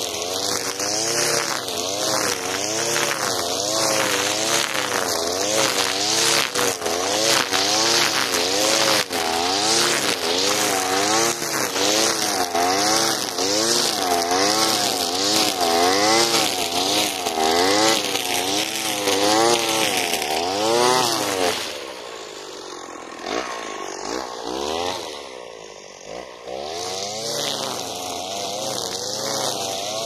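Alpina Star 55DP two-stroke petrol brushcutter running at high speed, spinning 3 mm square trimmer line through tall grass, its engine note rising and falling about once a second under the changing load. About two-thirds of the way in it throttles back to a lower, quieter running speed for a few seconds, then speeds up again.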